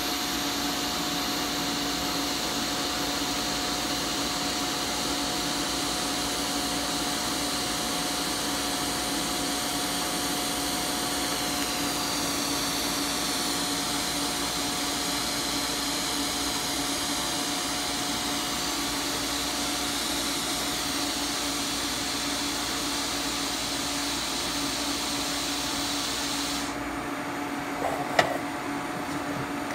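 TIG welding arc on 16-gauge 304 stainless steel, running a fillet bead at about 100 amps with 1/16" 308L filler rod fed in: a steady hiss over a constant electrical hum. The arc cuts off near the end, leaving a lower steady hum, followed by a single sharp click.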